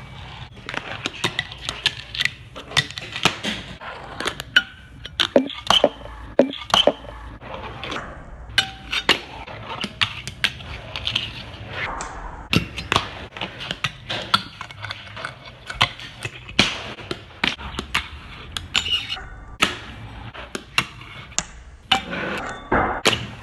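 Fingerboard with urethane wheels rolling on concrete, with many sharp, irregular clacks from the small deck popping, striking and landing.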